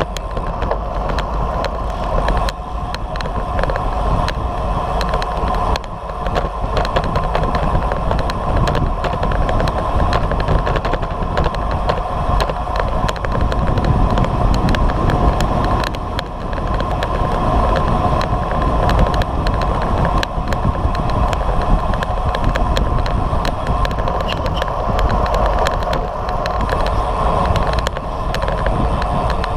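Wind rushing over the microphone of an action camera on a moving road bicycle, loud and steady, mixed with road noise from the tyres and scattered small clicks and rattles from road vibration.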